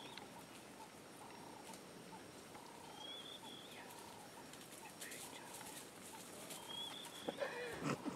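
Quiet bush ambience with a bird giving a short rising whistle about every three and a half seconds, over lower repeated calls. Near the end, African wild dogs scuffle on the dry trail and give a few short squeaky calls as they play.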